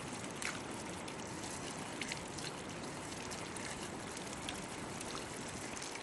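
Water pouring and trickling steadily, with a few faint taps and splashes.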